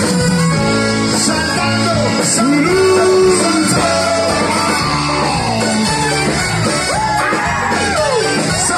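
Live band playing with electric guitars and bass, with singing over it.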